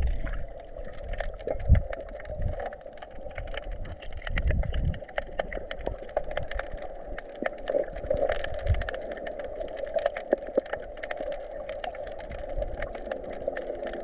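Underwater sound heard through a GoPro's waterproof housing: a muffled, steady wash of water with uneven low thumps from swimming and fin movement, and many scattered sharp clicks and crackles.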